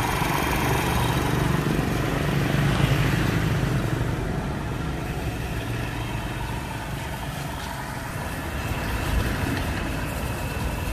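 A motor vehicle engine running steadily, loudest in the first few seconds and easing off after.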